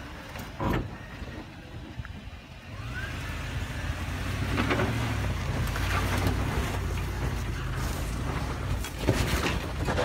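Toyota LandCruiser 100 Series four-wheel drive crawling through deep ruts on a dirt track: a steady low engine rumble that grows louder about three seconds in, with a few sharp knocks.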